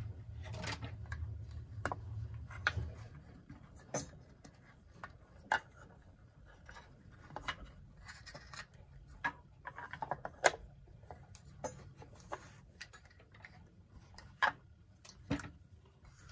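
Handling noise from threading an electric power cord through the back of a wooden clock case: irregular clicks, taps and light knocks as the cord and case are moved, the loudest about ten seconds in. A low hum is there for the first three seconds.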